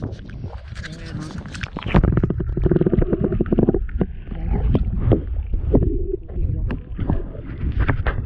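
Shallow sea water sloshing around hands releasing a sea bass. An action camera dipped under the surface turns it into a muffled underwater rumble with small knocks, louder from about two seconds in.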